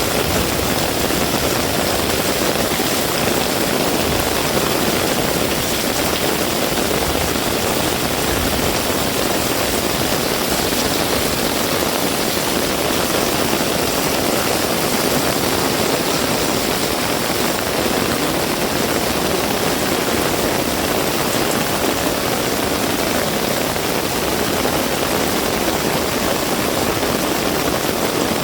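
Heavy rain falling steadily: a dense, even hiss of downpour that doesn't let up.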